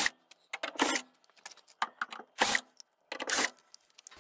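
Cordless drill-driver running in about four short bursts as it backs screws out of a CRT monitor's plastic case, with small clicks and rattles in between.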